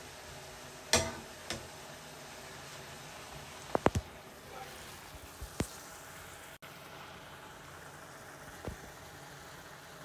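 Fish fillets frying in oil in a pan, a steady low sizzle, broken by a few sharp knocks and clicks: one about a second in, a close pair near four seconds, and single ones later.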